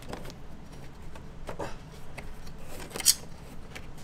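Brittle 20-year-old BMW E46 headlight trim clips being pulled and snapped off by hand: scattered small clicks and rubbing, with one sharper snap about three seconds in.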